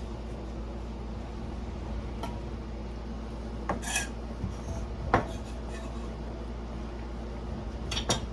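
A few scattered clinks and clatters of pots and kitchen utensils over a steady low hum. The sharpest comes about five seconds in, and a quick pair follows near the end.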